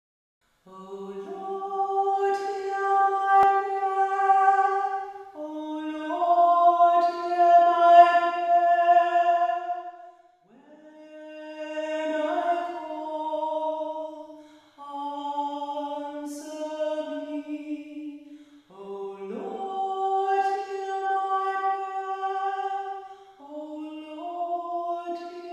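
Unaccompanied voices singing a slow chant, high-pitched, in about six long phrases of held notes with short breaths between them. It begins about half a second in, after silence.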